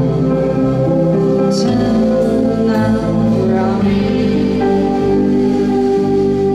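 Live rock band playing a song on electric guitars, bass and drums, with a woman singing into the microphone.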